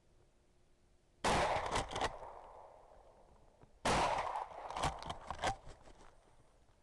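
Two shotgun blasts about two and a half seconds apart, each followed by a cluster of further sharp cracks and echoes that die away over a second or two.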